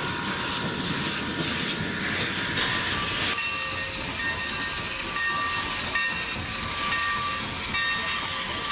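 Steam locomotive running with a steady hiss of steam. From about three seconds in, short high-pitched tones come and go over it again and again.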